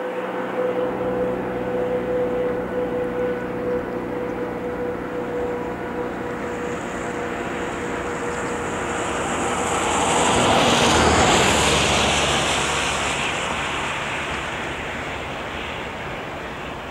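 The two-stroke 14D40 diesel engines of a 2M62U two-section locomotive running under load as it hauls a freight train, a steady engine drone with a clear hum. A broader rushing noise swells to its loudest a little past the middle and then fades.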